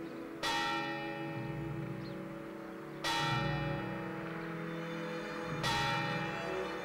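A large bell tolling slowly, three strokes about two and a half seconds apart, each ringing on and fading, over low sustained tones.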